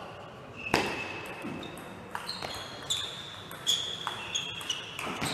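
Table tennis rally: the ball clicking sharply off the bats and table, a loud hit about a second in and then a quick run of clicks about every half second, echoing in a large hall.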